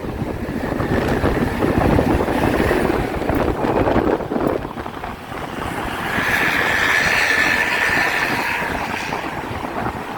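Road traffic noise with wind buffeting the microphone while moving along a road. About six seconds in, a high steady tone sounds for roughly three seconds over the rumble.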